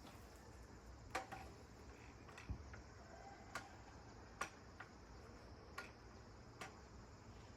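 Faint, irregular clicks and ticks, about seven spread over several seconds, against a near-silent background.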